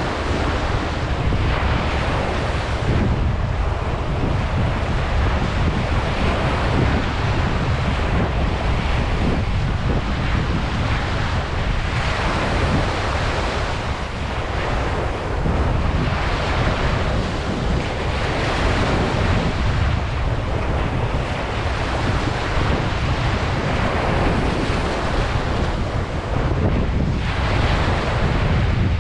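Ocean surf breaking on a beach in a continuous wash that swells every few seconds as waves come in, with a low wind rumble on the microphone.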